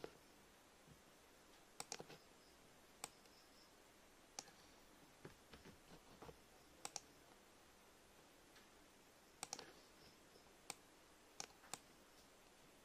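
Computer mouse clicking now and then, a dozen or so short clicks with some in quick pairs, over a faint room hiss.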